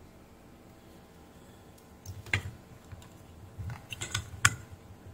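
Light clicks and knocks of an inverter circuit board being handled on a workbench, coming in two short clusters after about two seconds, with the sharpest click near the end.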